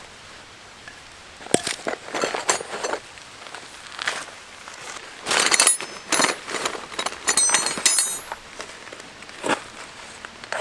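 Camping gear being handled: scattered rustles and knocks, with a quick run of light metallic clinks about seven to eight seconds in.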